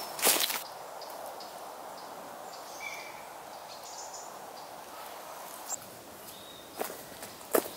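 Footsteps on a leaf-littered woodland path right at the start and again near the end, with a steady background hiss and a few faint bird chirps in between.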